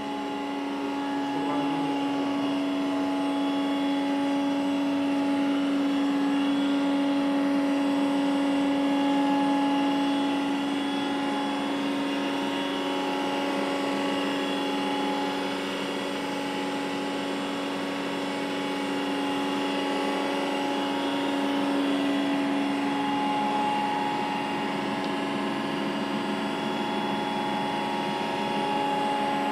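TRAUB TND 200 CNC lathe running, a steady machine whine over an even hiss that holds level throughout.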